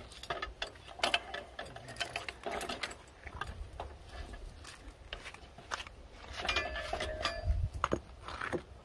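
Crank-handle screw jack on a Norwood HD36 sawmill bed leg being wound by hand to adjust the leg's height, its mechanism giving a run of quick, uneven mechanical clicks.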